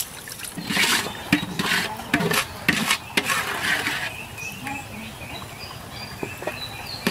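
Hands swishing and churning rice in a plastic bucket of water, washing it, in repeated splashy strokes for the first three seconds or so, then dying away.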